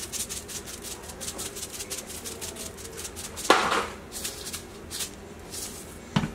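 Salt shaken from a shaker over a raw beef roast in a stainless steel sink: a quick, even run of gritty shakes, several a second, for about three seconds. A sharp knock comes about three and a half seconds in, then a few more scattered shakes and a short dull thump near the end.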